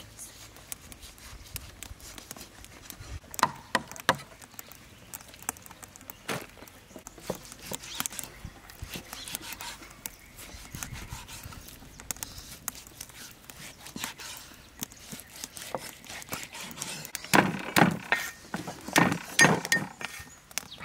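A cleaver cuts through roasted pork belly on a wooden chopping block, with scattered knocks and crunches. Near the end come a quick run of louder, thudding cleaver chops on the wooden block as garlic cloves are chopped.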